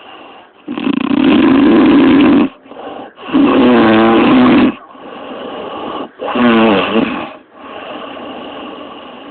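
A woman snoring heavily in her sleep. There are three loud snores, the second and third with a wavering pitched tone through them, and quieter breathing between them.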